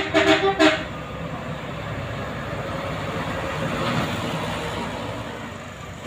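Multi-tone telolet horn on an intercity bus, sounding in short choppy blasts that stop within the first second. Then a bus engine and tyre noise as a coach passes.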